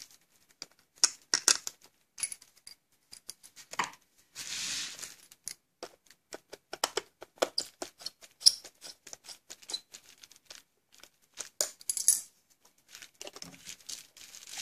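Light plastic clicks and small knocks from the battery cover and fold-out stand on the back of a Mastech MS8233B digital multimeter as they are fitted and handled. A brief rustle comes about four seconds in.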